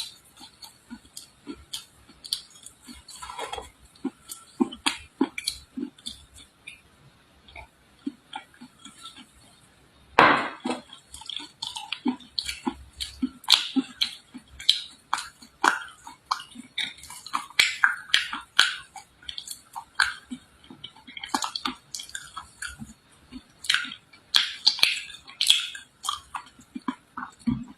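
Red clay being crunched: a dense run of irregular crisp cracks and crackles, with one louder crack about ten seconds in.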